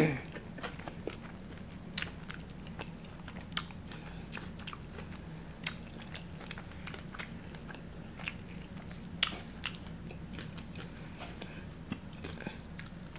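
Close-up mouth sounds of chewing a bite of steak burrito: scattered wet clicks and soft crunches, a few of them louder, spread through the chewing.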